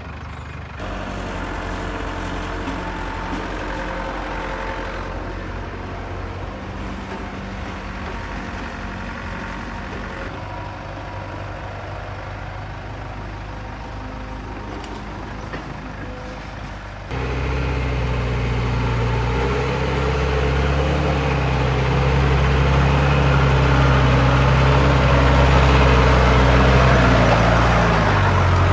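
Heavy diesel machinery engines running steadily. About two-thirds of the way through, the sound switches abruptly to a louder, deeper engine working hard, with a growing rush of noise on top.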